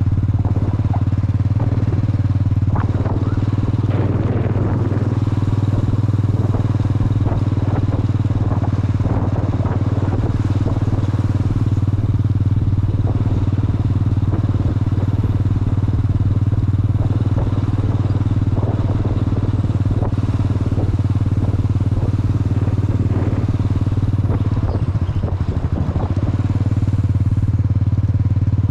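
Steady low rumble of wind and road noise on a moving action camera's microphone during a bicycle ride, with scattered small rattles and knocks throughout.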